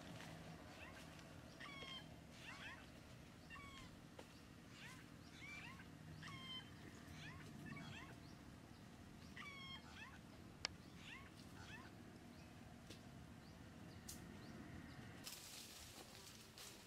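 Faint short calls from an animal, repeated roughly once a second and each bending briefly in pitch, dying away about ten seconds in. Near the end there is a rustle of plants.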